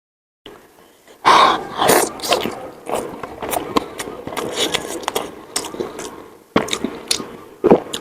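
Close-miked eating sounds from spicy momos: wet chewing with a run of short mouth clicks and smacks. Two loud breathy outbursts, about a second in and again near the end, fit the coughing and sniffing that a hot, spicy mouthful brings on.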